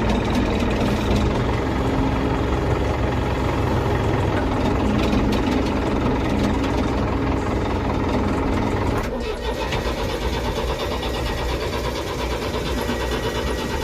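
Case 770 backhoe loader's diesel engine running, then cutting out about nine seconds in as it runs out of fuel, leaving a quieter, thinner sound.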